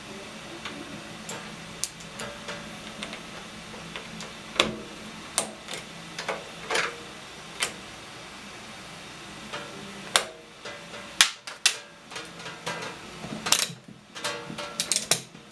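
Scattered clicks, knocks and light metallic taps of tools and parts being handled while a microwave oven is worked on for repair, coming thicker in the second half.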